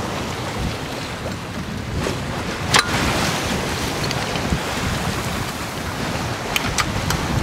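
Wind buffeting the microphone over the wash of the sea along a sailboat underway. One sharp click comes a little under three seconds in, and a few small clicks near the end.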